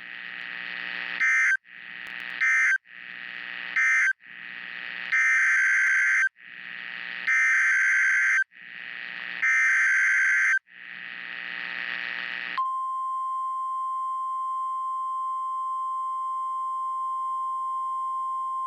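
NOAA Weather Radio Emergency Alert System data tones. Three short screeching SAME end-of-message bursts come first, then three longer SAME header bursts, with a rising hiss before each. From about two-thirds of the way in comes the steady 1050 Hz warning alarm tone, which announces the next warning.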